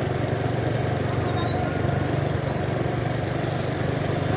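A vehicle engine running steadily, a low even rumble with a fast flutter and no horn.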